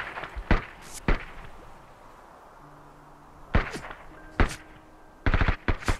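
Gunfire in a battle: single sharp shots at irregular intervals, then a rapid burst of shots near the end.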